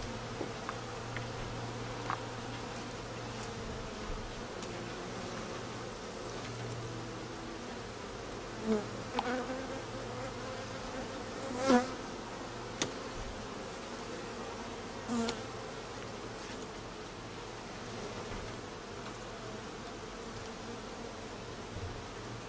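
Honeybee colony buzzing steadily in an open hive, with a few short knocks and clicks, the loudest about twelve seconds in.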